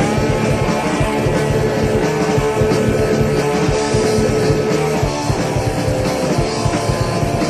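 Heavy metal song: distorted electric guitars over a driving drum beat, with one long held note for the first five seconds or so.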